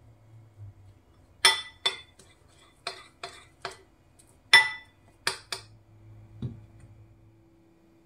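Metal spoon clinking against a ceramic bowl while stirring flour into melted fat to make a paste: about eight short, ringing clinks in small groups, then one duller thump near the end.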